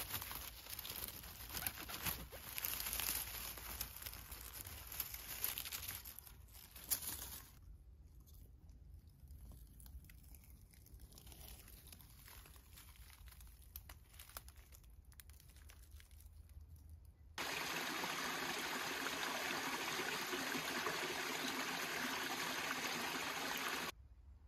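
Dry pine needles and leaf litter rustling and crunching as mushrooms are picked and cut. Then comes a quiet stretch, and then a steady rushing noise that starts and stops abruptly, about six seconds long.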